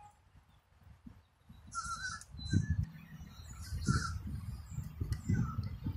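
Crows cawing several times in the second half, over a low rumble that grows louder from about two seconds in.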